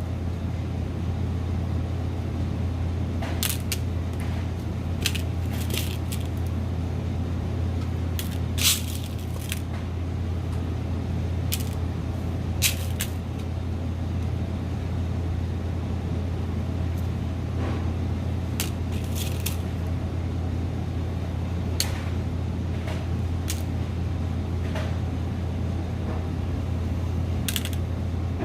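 Small metal crimp sleeves clicking as they are handled and dropped into small containers while being sorted for burrs: scattered light clicks, a few seconds apart, over a steady low hum.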